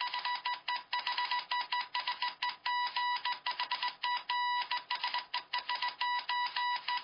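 Morse code sent very fast as telegraph beeps: a single high tone keyed on and off in rapid short and long pulses, without a break.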